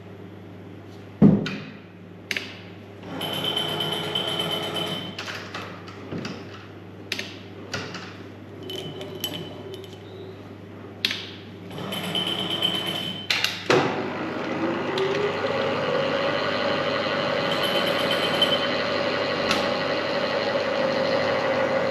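Metal knocks and clatter of workpiece and tool handling, with short hissing stretches. About 14 seconds in, a milling machine starts up: its whine rises in pitch, then it runs steadily.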